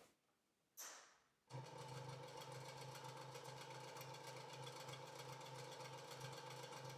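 Makita SJ401 scroll saw running unloaded at its lowest speed, 400 strokes per minute: a steady, faintly pulsing mechanical hum that starts about a second and a half in, just after a short click.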